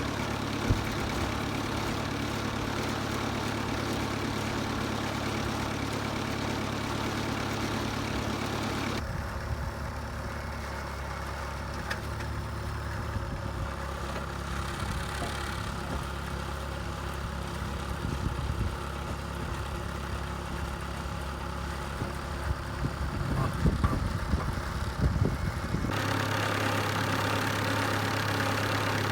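Wood-Mizer LT40 band sawmill's engine running steadily, its sound changing abruptly about nine seconds in and again a few seconds before the end.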